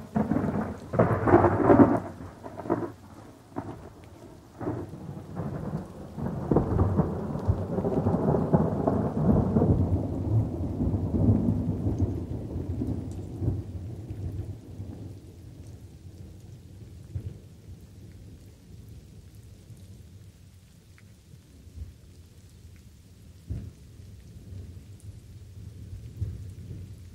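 Thunderstorm with light rain: thunder opens with a sudden loud crack and a few sharp claps in the first two seconds, then a long rolling rumble swells about six seconds in and slowly dies away, leaving the steady patter of light rain and distant grumbles near the end.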